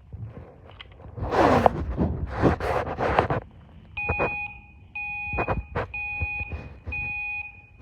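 Fire alarm beeping, set off by smoke: evenly repeated half-second tones, about one a second, starting about four seconds in. It is preceded by a couple of seconds of loud, noisy clatter.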